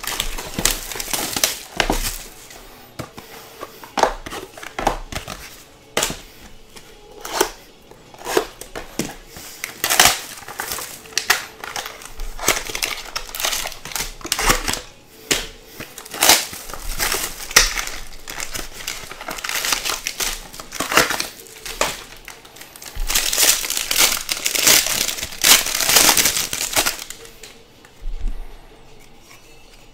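Packaging of a 2021 Topps Triple Threads baseball card box being opened by hand: silver foil pack wrappers and box material crinkling and tearing in a long run of short crackles and rustles, busiest a few seconds before the end and dying down in the last seconds.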